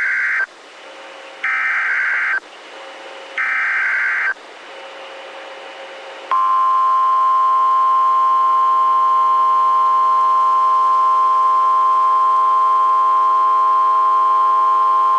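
Emergency Alert System weather-radio alert: the screechy SAME digital header sounds in three short bursts about a second apart over faint radio hiss. About six seconds in, the steady 1050 Hz Weather Radio warning alarm tone begins and holds. Together they signal an incoming tornado warning.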